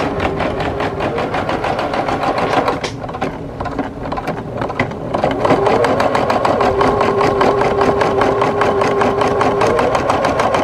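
Bernette Deco 500 embroidery machine (Brother-made) stitching out a design, its needle running in a fast, even rhythm of about 350 stitches a minute. About halfway through it gets louder, and a motor whine rises briefly and then holds steady.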